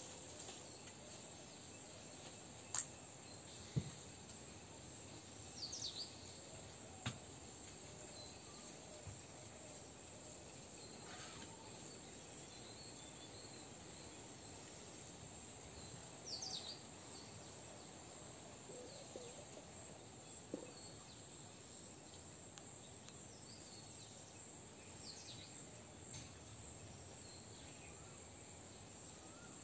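Outdoor insect chorus: a steady high-pitched insect drone, with a few short bird chirps and a few sharp clicks in the first seven seconds.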